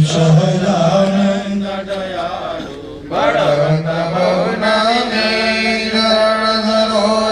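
Sanskrit havan mantras chanted in a steady, sung recitation, with a short break for breath about three seconds in.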